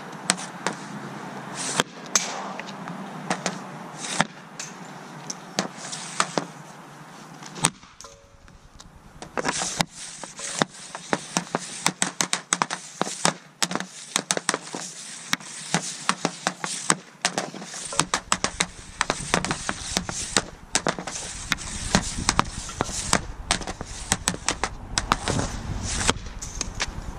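Hockey stick blade clacking against a puck on a plastic shooting pad. There are a few separate sharp cracks at first, then from about ten seconds in a quick run of taps, several a second, as the puck is stickhandled back and forth.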